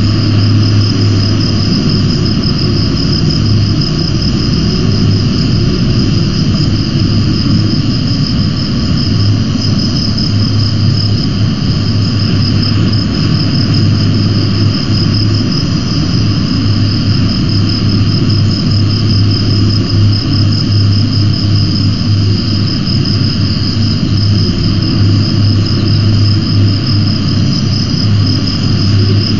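Steady loud rumbling noise with a low hum and a thin, high, rapidly pulsing whine over it, the sound of an exposed cliff-top nest camera's microphone in the wind. No eagle calls.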